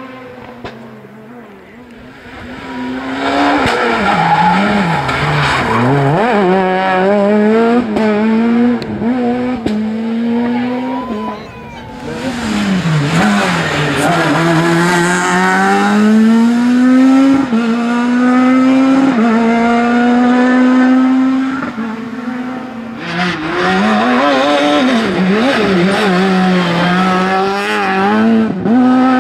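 Rally car engines revving hard, climbing in pitch through each gear and dropping at every change, with sharp dips and blips as they brake and downshift for corners. The noise is loud from about three seconds in, with brief lulls about 11 and 22 seconds in.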